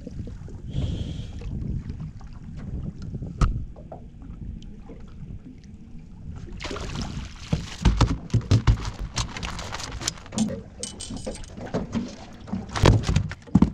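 A landed flathead flapping and thumping about inside a small boat after jumping out of the landing net. Scattered knocks at first, then a quick run of knocks and slaps from about seven seconds in, with two louder thumps.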